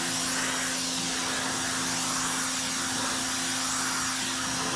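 RYOBI 1800 PSI electric pressure washer running steadily, its motor humming under the hiss of the spray. It is running continuously without cutting in and out, now that the air has been purged from the hose.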